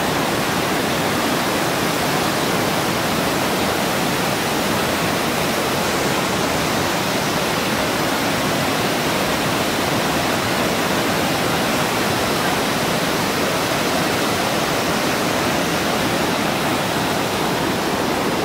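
Waterfall's water rushing in a steady, unbroken wash of noise.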